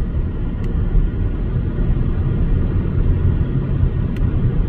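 Loud, steady low rumbling noise, with two faint clicks, one near the start and one near the end.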